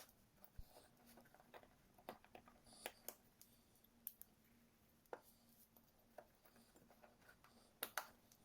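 Faint scattered clicks and light taps of small engine parts being handled during assembly of a scooter's piston and cylinder, over a faint steady hum, the loudest taps near the end.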